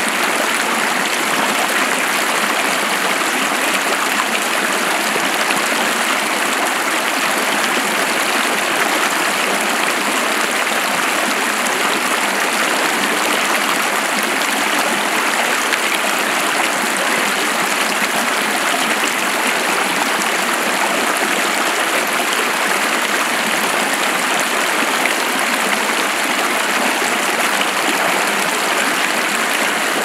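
Creek water running over nearby waterfalls: a steady, even rush of water with no breaks or distinct splashes.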